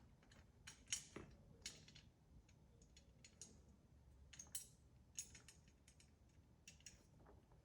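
Faint, irregular small metal clicks and ticks of an Allen key working the screws of the laser engraver's frame corner brackets, the sharpest about a second in.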